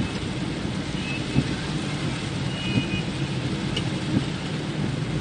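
Steady car engine hum and rain noise heard from inside the car, with a soft knock about every one and a half seconds from the windshield wipers sweeping.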